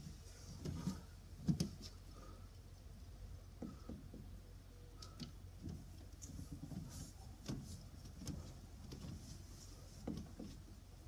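Faint, irregular soft knocks and scuffs of a person's footsteps on garden paving, over a low steady outdoor rumble.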